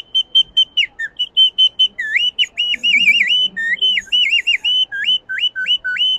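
Collo, a small Amazonian bird-call whistle, played in quick short high notes. These turn into warbling trills and dipping, swooping glides, and end with several quick rising swoops, imitating birdsong.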